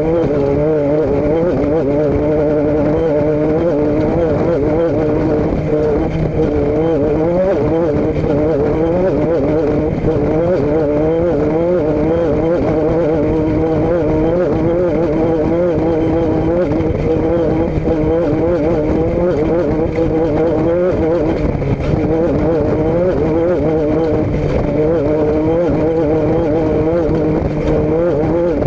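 A vehicle engine running steadily at a near-constant speed, its pitch wavering slightly up and down.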